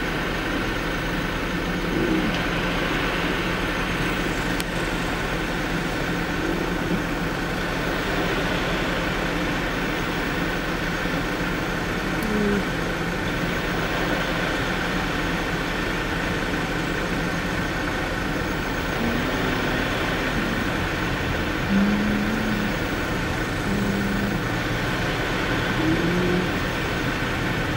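Steady road and engine noise from a motorcade of vehicles driving past, with no sirens.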